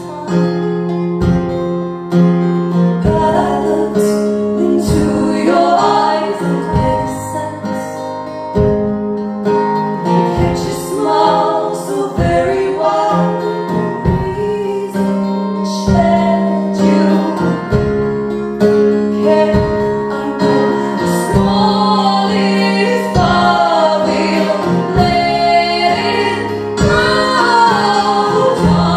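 Live acoustic guitar music, strummed chords with steady low notes, with women's voices singing over it.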